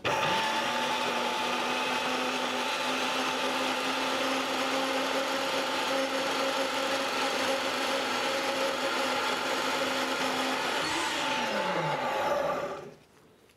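Femi NG120 XL portable metal-cutting band saw starting up and slicing a thin disc off a round metal bar: a steady motor whine under the hiss of the blade cutting. Near the end it is switched off and the whine falls in pitch as it winds down.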